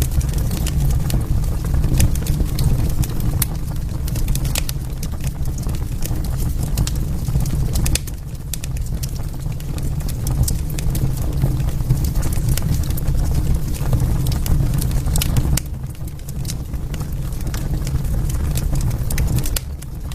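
Wood fire crackling, with frequent sharp pops and snaps over a low, steady rumble of burning.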